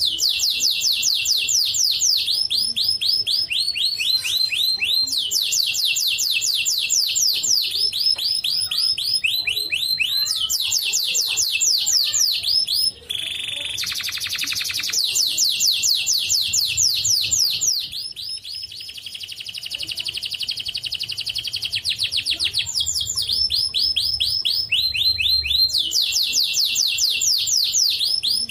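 White canary singing a long run of fast trills. Each trill is a quick series of falling whistles, and the bird switches from one trill to the next every second or two. Just before the middle the song breaks off for an instant, and a little later comes a softer rolling trill.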